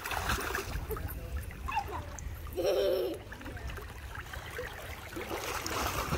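Pool water splashing and sloshing as a child swims and kicks, with a short high child's vocal sound about halfway through.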